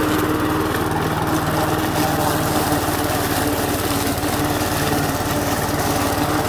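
Briggs & Stratton 450E single-cylinder push lawn mower engine running steadily while the mower is pushed through thick weeds and ferns.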